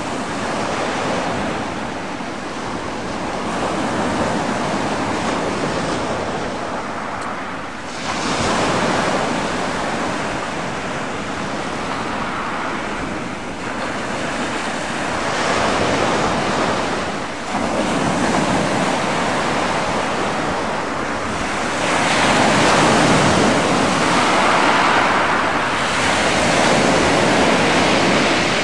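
Sea water washing and sloshing, with wind buffeting the microphone; the noise swells and eases every few seconds.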